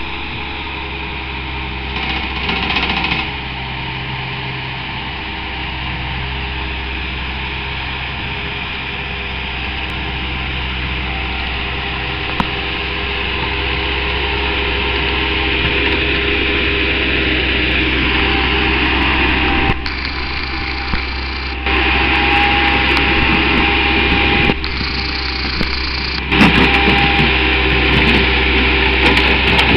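Bobcat 864 compact track loader's diesel engine running steadily as it travels on its tracks, growing gradually louder. In the last ten seconds the engine note changes several times as the loader works, and a few knocks come near the end as the bucket pushes into a pile of broken concrete slabs.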